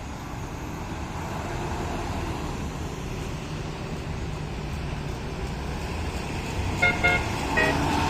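Steady engine and traffic noise, then near the end two short blasts of a multi-tone telolet bus horn, the start of its tune.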